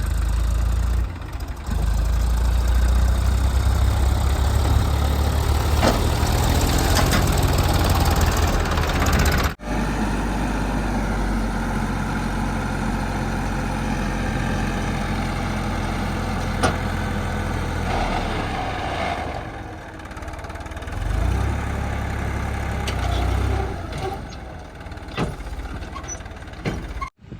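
Heavy diesel engine of earthmoving machinery running with a deep, steady rumble, broken by a sudden cut about ten seconds in; in the second part the engine note drops and then swells again a few seconds from the end.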